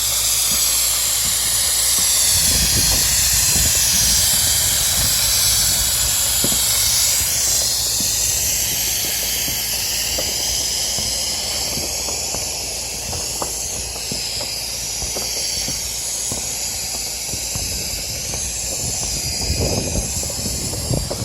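Airless spray gun hissing steadily as it sprays silicone roof coating onto a steel roof, the high hiss wavering slightly in pitch. A low rumble comes and goes underneath, strongest a few seconds in and again near the end.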